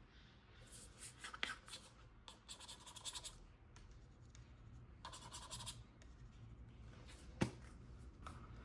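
Hands handling the packaging during an unboxing: a few short bursts of quiet scratchy rubbing and scraping, then one sharp click about three-quarters of the way through.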